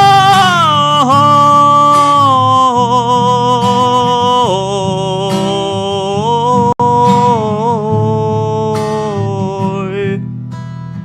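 A man singing one long wordless held note, with a few dips in pitch, over acoustic guitar; his voice is hoarse from a cold. The voice stops about ten seconds in and the guitar strumming carries on.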